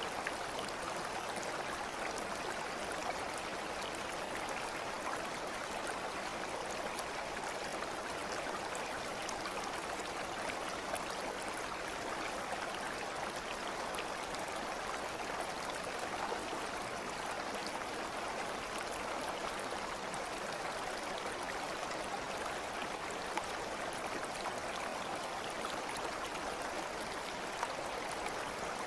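A stream running steadily: an even rush of flowing water with faint small splashes and ticks scattered through it.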